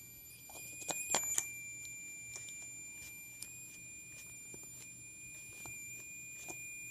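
A small speaker driven by a 555 timer oscillator gives a steady high-pitched tone; its pitch is set by the light falling on a phototransistor in the circuit. A few light clicks come about a second in.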